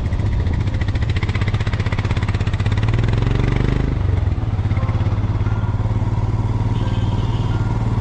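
Motorcycle engine running steadily while riding along the highway, heard from on the bike. Its pitch rises briefly around three seconds in.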